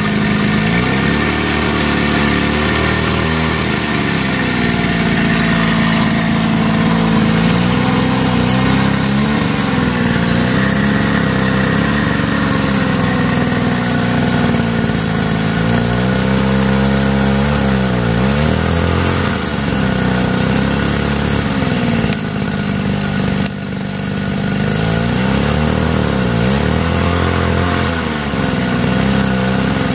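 The hydraulic pump of a homemade 1/8-scale Cat 390F RC excavator runs continuously as the boom and bucket dig. Its pitch sags and recovers again and again as the hydraulics take load.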